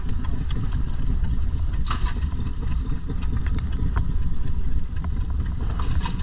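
A boat's engine running steadily with a low rumble, with a few light knocks and clatter on top, the clearest about two seconds in and near the end.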